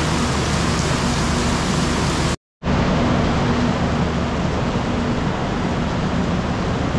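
Steady hiss of heavy rain over the low, steady hum of the Rajdhani Express's air-conditioned coaches. The sound cuts out completely for a moment about two and a half seconds in.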